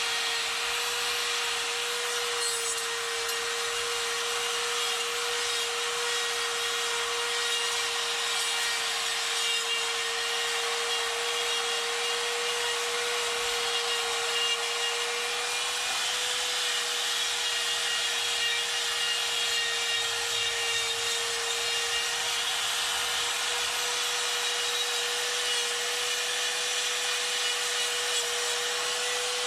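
Die grinder fitted with a Saburrtooth flame burr, running at a steady high-pitched whine while its burr grinds and rubs away wood to clean up a carving.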